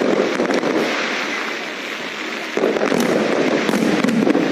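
Fireworks: a dense, continuous crackle of many small pops, with a fresh, louder surge of crackling about two and a half seconds in.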